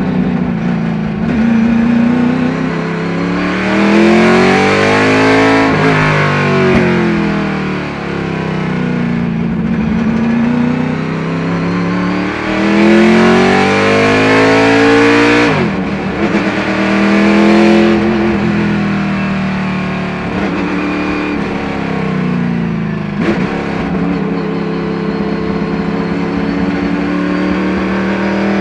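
The V8 engine of a 1976 Chevrolet IMSA Monza race car at racing pace, heard from inside the cockpit. The revs climb and fall again and again, with a sudden sharp drop about halfway through.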